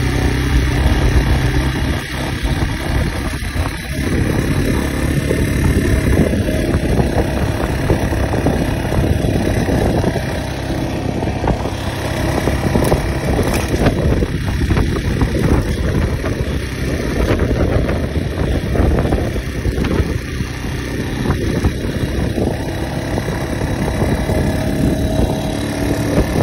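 Motorcycle engine running under way on a dirt track, its loudness easing off and picking up again every few seconds.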